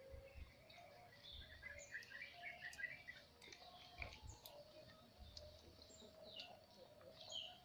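Faint chirping of small birds: scattered short, high calls, bunched about two seconds in and again near the end, over otherwise quiet surroundings.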